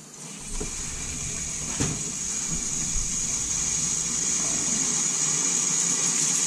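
Compressed air and water rushing through the heater core and its hoses as the cooling system is blown out: a steady, hissing rush that builds over the first second or so.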